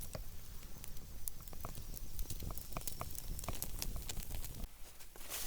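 Steak cooking directly on glowing campfire coals, cowboy style, giving off irregular crackles and pops throughout.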